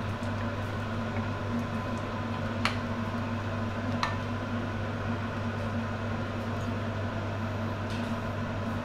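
Steady low machine hum of a kitchen appliance. About two and a half and four seconds in come two light clinks of a metal spoon against a ceramic bowl as batter is stirred.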